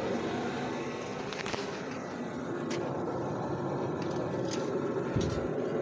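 Scattered light clicks and a short knock about five seconds in, from hands working among the hoses and wiring of a car's engine bay to pull the oil dipstick, over a steady background rumble.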